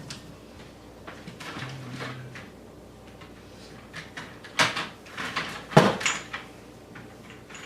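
Kitchen handling sounds: a few sharp knocks and clacks of things being moved and set down, the two loudest about four and a half and six seconds in.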